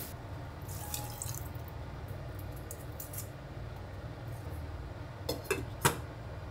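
A glass saucepan lid with a steel knob set down on a stainless steel pot: two sharp, ringing clinks about half a second apart near the end, over a low steady hum.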